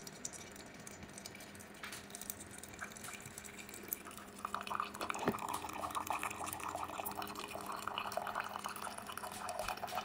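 Single-serve pod coffee maker brewing a K-cup on its bold setting: coffee drips and splutters into the mug, growing busier and denser about four seconds in, over a faint steady hum.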